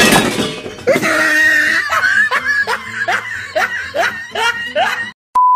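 A person laughing in a run of short snickering syllables, each rising in pitch, about three a second, after a loud burst of noise at the start. A steady beep tone cuts in just before the end.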